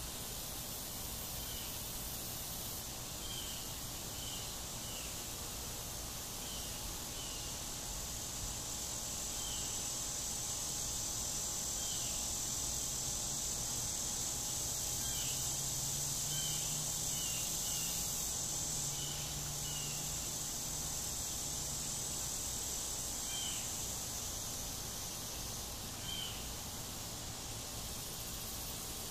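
Outdoor insect chorus: a steady high drone with short chirps repeating every second or so. A low buzz sounds for several seconds in the middle, which fits blow flies flying in to the carcass.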